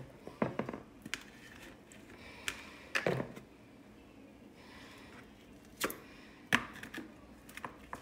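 Marinated raw chicken wings set down one by one onto a metal baking sheet from a plastic bowl: irregular wet slaps, taps and knocks, with a cluster about three seconds in and another near six and a half seconds.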